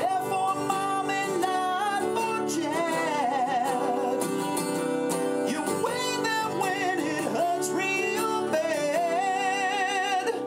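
A man singing a song with a wavering vibrato on held notes, accompanying himself by strumming a steel-string acoustic guitar.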